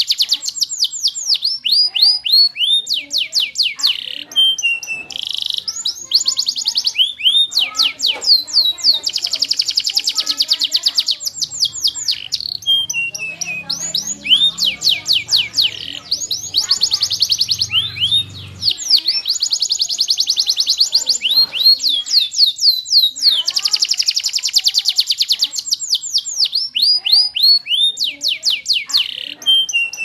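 Yellow domestic canary singing: long, fast trills of rapidly repeated, high sweeping notes, phrase after phrase with short breaks between them.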